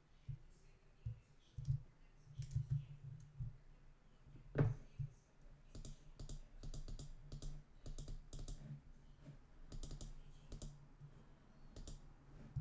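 Computer keys clicking in quick irregular clusters, busiest from about six to eleven seconds in, with one louder knock about four and a half seconds in.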